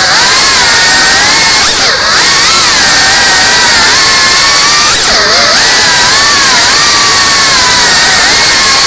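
FPV quadcopter's motors and propellers whining steadily, close up. The pitch dips and climbs back with throttle changes about two seconds and five seconds in.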